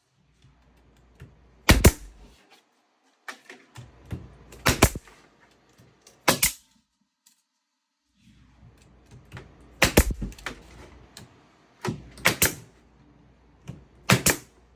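Brad nailer firing brads into wood paneling: about eight sharp shots at irregular intervals, some in quick pairs.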